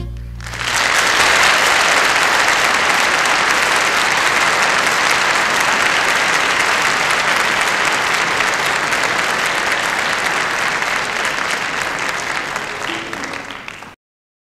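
A concert audience applauds as the last guitar note of a song dies away. The applause stays steady and is cut off abruptly near the end.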